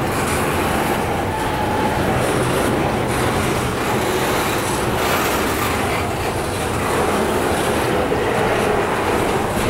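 Double-stack intermodal freight cars rolling past: a steady rumble and clatter of steel wheels on the rails.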